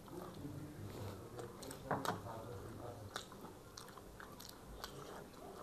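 Close-miked chewing and biting of people eating noodles and chicken chilli: soft wet mouth sounds with scattered small clicks and smacks, the loudest about two seconds in.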